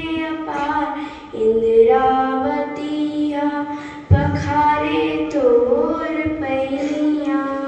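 Schoolchildren's voices singing a slow unaccompanied song with long held notes, a new phrase starting sharply about four seconds in.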